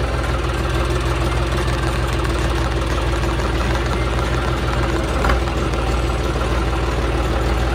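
Engine of a dumper running steadily, with a brief knock about five seconds in.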